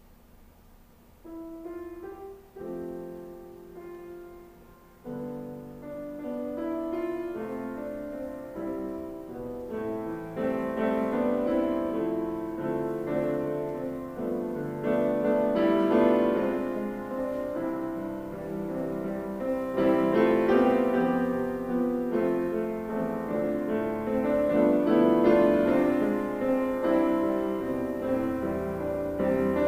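Grand piano starts playing about a second in, a few sparse notes at first, then fuller chords that grow steadily louder.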